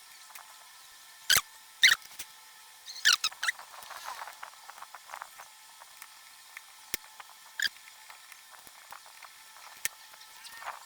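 Scattered sharp clicks and short squeaky scrapes of the laptop's plastic case and cover being handled and pressed shut. The strongest come in a cluster in the first few seconds, and a few lighter clicks follow later.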